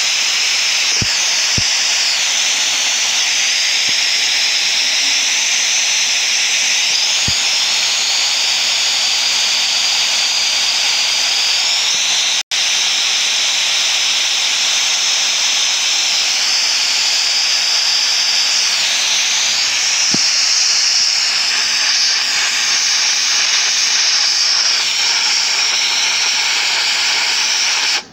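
Loud, steady static-like hiss with a faint wavering high tone running through it. The sound cuts out for an instant about twelve seconds in.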